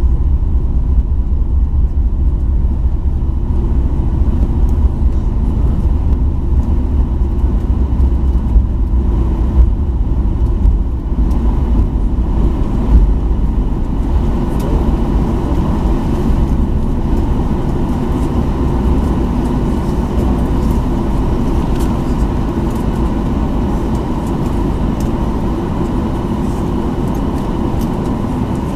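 Cabin noise of a Boeing 737-800 taxiing, heard from a window seat over the wing: a steady deep rumble from the idling CFM56-7B engines and the rolling aircraft, with a few brief thumps in the first half.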